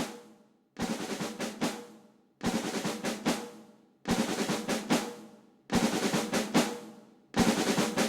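Background music: a drum pattern of quick snare and bass-drum hits, a short phrase repeating about every second and a half with a brief gap after each.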